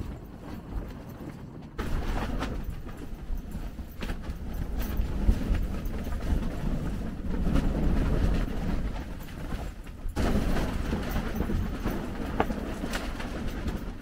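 Strong wind gusting against a canvas tent and its tarp, the fabric flapping and knocking over a low rumble of wind on the microphone. The level rises and falls sharply every few seconds.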